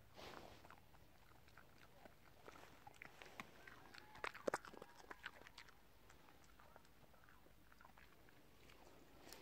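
A dog chewing and crunching dry carob pods: faint, irregular crunching bites, bunched together in the middle with the loudest crunch about four and a half seconds in.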